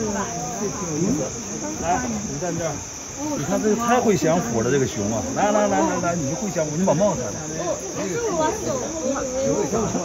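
A steady, high-pitched insect drone from the forest, with several people talking indistinctly over it.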